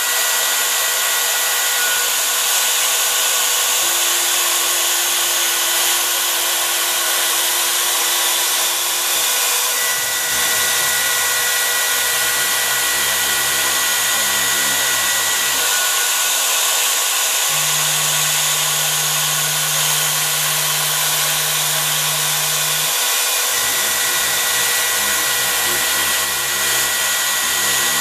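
The router spindle of a home-built CNC machine runs with a steady high-speed whine while its bit carves grooves in an architrave block. Beneath it, lower hums from the axis drives start, stop and change pitch every few seconds as the head moves.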